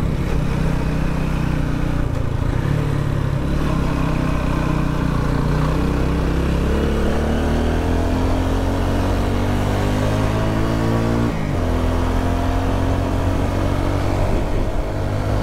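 Vehicle engine running on the move, its pitch rising steadily as it accelerates, then dropping suddenly about eleven seconds in at a gear change and running steady again, over road and wind noise.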